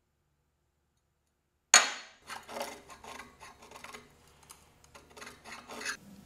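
Metal workshop parts being handled and knocked about: after a moment of dead silence, one sharp metallic hit about two seconds in, then a run of irregular light clinks and knocks.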